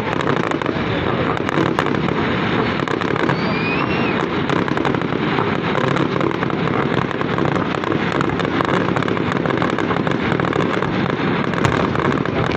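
Fireworks display going off: dense, continuous crackling with many sharp pops and small bangs.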